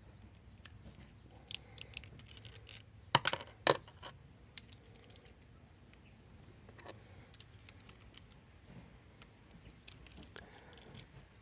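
Metal hand tools and engine parts being handled: scattered light metallic clicks and clinks, with two sharper knocks a little over three seconds in.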